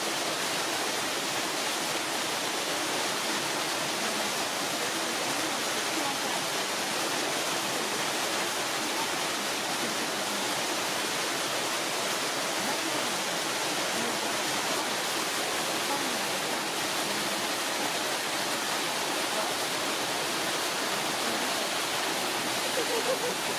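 Steady, even rushing noise with no distinct events, of the kind made by running water.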